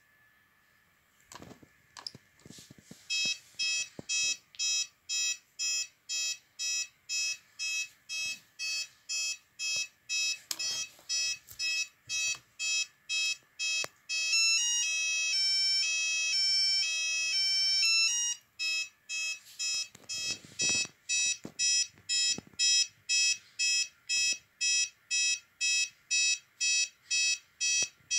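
Orisec intruder-alarm keypad sounding its exit-delay warning after being set to arm: a high, pulsed beep about twice a second. Midway it breaks into a few seconds of stepping tones that change pitch, then the pulsed beeps return. A few sharp clicks of keypad buttons come before the beeping starts.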